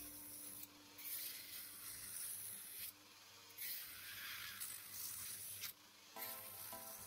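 Dremel rotary tool's small cut-off disc grinding into a toy-car part, a hissing grind that stops briefly about a second in, again near three seconds and near six seconds. Faint background music comes in near the end.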